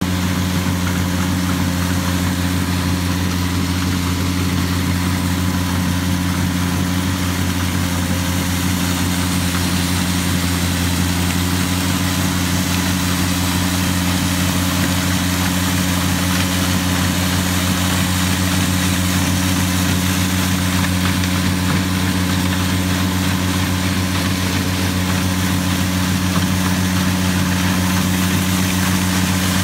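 Ventrac 4500Z compact tractor's diesel engine running at a steady, constant speed while driving its front LX523 two-stage snow blower, which is throwing snow; a steady engine drone over an even hiss of the blower and the thrown snow.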